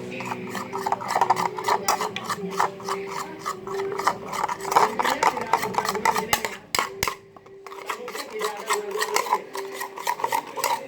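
Rapid, repeated rubbing or scraping strokes on craft material, pausing briefly about two-thirds of the way through.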